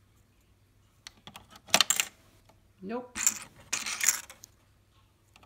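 Coins dropping into a toy cash register's coin slot, clicking and clinking down inside. The clinks come twice, about two seconds in and again around three to four seconds in, with a brief rising tone between them.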